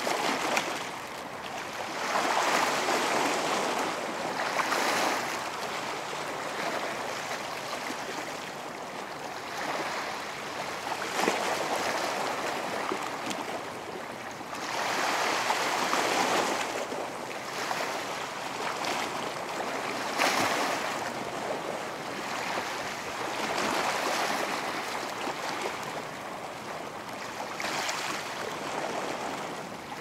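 Atlantic Ocean waves breaking and washing up a beach, the surf noise swelling and easing every few seconds.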